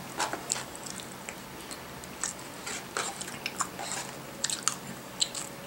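A person chewing and eating, with small irregular clicks and mouth noises.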